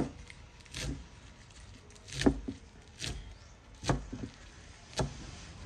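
A series of sharp kitchen knocks, about one a second and unevenly spaced, from utensils striking a pot or board while herbs go into the braising fish.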